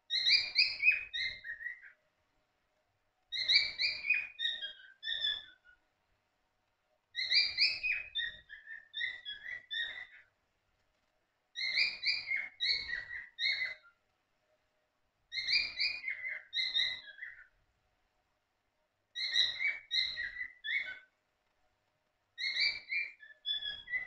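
Cockatiels chirping: bursts of quick, high whistled chirps, each burst a couple of seconds long, repeating about every four seconds.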